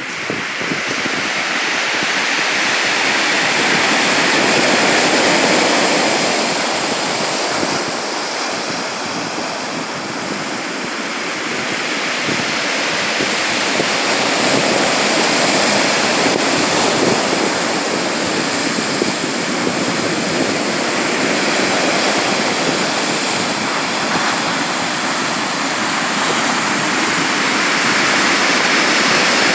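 Sea surf washing ashore, a continuous loud rushing that swells and eases slowly over several seconds.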